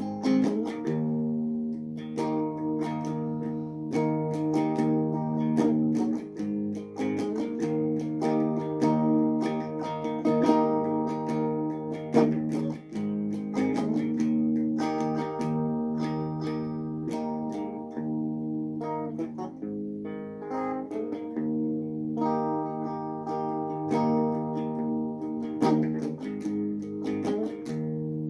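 Clean electric guitar played through a small practice amp: strummed and picked chords that ring on, changing every couple of seconds, with no singing.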